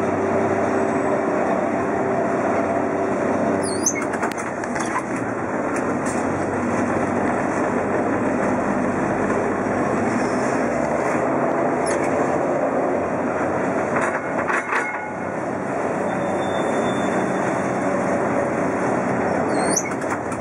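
Vintage electric tram heard from inside its wooden cab while running on street rails: a steady rumble of wheels on track with a motor hum over the first few seconds. The body knocks and rattles now and then, and brief high wheel squeaks come about four seconds in and near the end.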